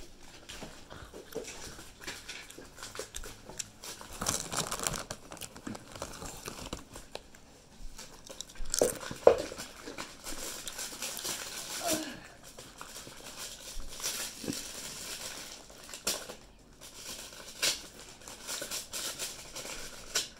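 Crinkling and rustling of food packaging being handled, in irregular bursts, the loudest about nine seconds in.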